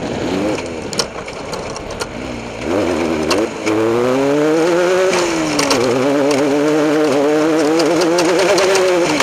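Off-road race vehicle's engine under load: quieter for the first few seconds, then revving up hard about three seconds in and held at high revs, its pitch rising, falling and rising again with a rapid warble. Sharp clicks and knocks sound throughout.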